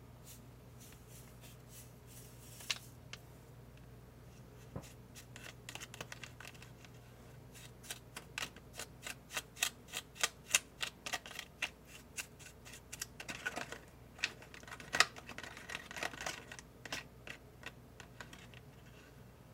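Small plastic spoon stirring sauce mix in a plastic candy-kit mold tray, clicking and scraping against the tray about three times a second for most of the second half. Before that, a few scattered sharp clicks and soft rustles.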